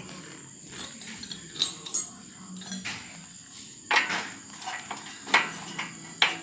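Steel spanner clinking and knocking against a nut, bolt and the metal mounting bracket of a Royal Enfield Classic's silencer and footrest as the nut is worked loose: a handful of separate sharp metallic knocks, the loudest about four and five seconds in.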